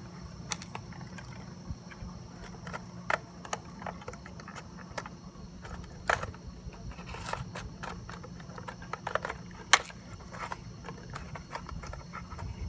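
Small clicks, taps and scrapes of hands working the hopper and packer parts of a diecast rear-loader garbage truck model, with a louder click about ten seconds in, over a steady low background rumble.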